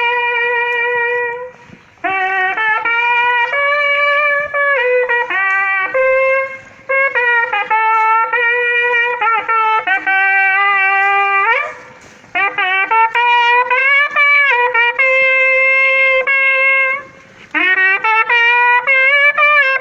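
Berrante, a Brazilian cattle horn made from ox horn, blown in a melodic call that jumps and wavers between a few notes above a steady base note. The playing is broken by four short pauses.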